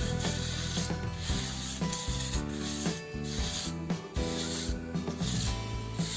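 Steel mason's trowel scraping and smoothing wet cement mortar across a concrete floor in repeated strokes, with background music.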